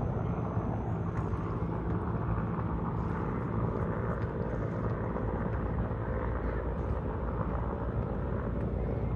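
Military transport helicopter flying past, its rotor and engine making a steady drone.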